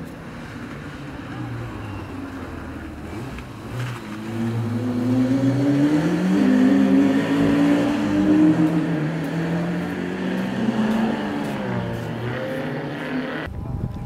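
Rally car engine at full throttle passing by, its pitch climbing in steps through the gears, loudest midway, then falling away as it goes. The sound changes abruptly near the end.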